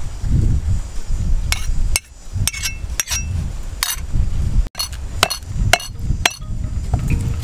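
Sharp metallic clinks and knocks of a steel spoon against a cleaver blade and a ceramic bowl, with taps on a wooden chopping board, as chopped chillies are scooped up and spooned into salt. The strikes come singly at irregular intervals, with a cluster in the second half.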